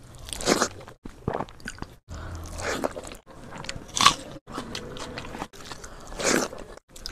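Close-up crunching bites and chewing of crispy fried food, in a string of short takes that each stop abruptly about once a second.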